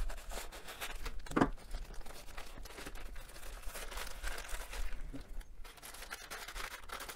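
Scissors cutting open a thin plastic poly mailer, with one sharper snip about a second and a half in, then the plastic crinkling and rustling as hands pull the bag open.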